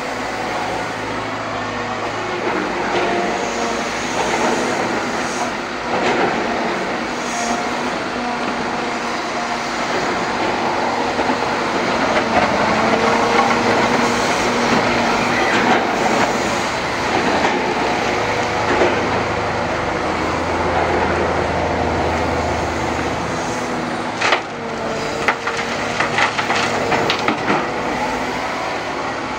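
Liebherr 918 wheeled excavator's diesel engine and hydraulics working steadily as it digs and swings its loaded bucket. Near the end comes a burst of clattering: soil and stones dropped into the tipper truck's steel bed.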